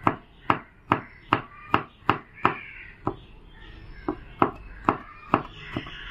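Kitchen knife chopping garlic finely on a cutting board: a run of quick, even knife strikes about two to three a second, with a short pause about three seconds in before the chopping resumes.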